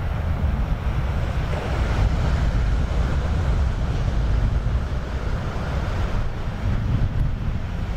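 Wind on the microphone: a continuous, gusting low rumble with a steady rushing hiss over it.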